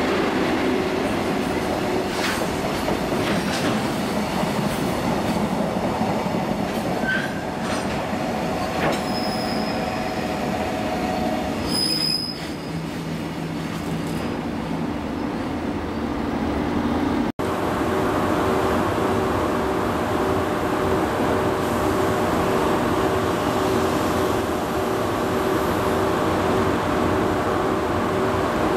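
A freight train's container wagons roll past, the wheels clicking over the rail joints, and the sound fades as the tail of the train goes by about 12 seconds in. After a sudden cut about 17 seconds in, a steady hum with a pulsing tone runs on, from a JR Freight EF81 electric locomotive standing at a platform.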